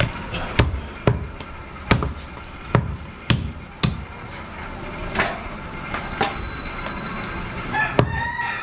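A heavy butcher's cleaver chops goat meat on a round wooden chopping block. The sharp chops come in quick succession, about two a second for the first four seconds, then slow to single chops about five and eight seconds in.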